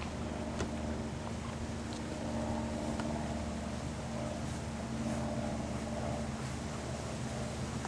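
An engine idling steadily with an even, low hum that does not change pitch.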